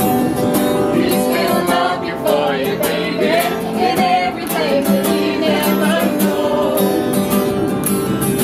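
Singing with acoustic guitar strumming.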